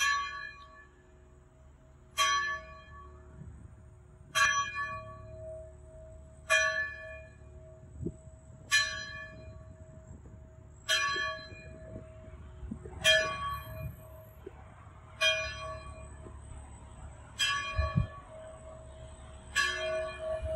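A single church bell tolling slowly, struck ten times about two seconds apart, its hum ringing on between strokes.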